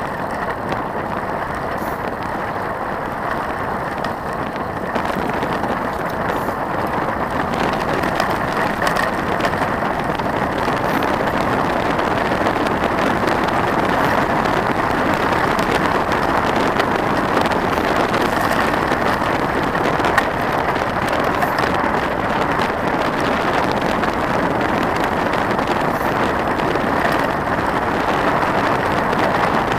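Mountain bike rolling fast down a gravel road: a steady rush of tyre noise on the gravel mixed with wind on the camera's microphone. It grows louder over the first ten seconds or so as speed builds, with occasional light clicks.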